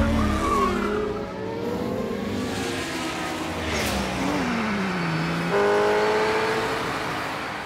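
Car engine revving, its pitch sliding down and then jumping sharply higher about two-thirds of the way through, before fading away near the end.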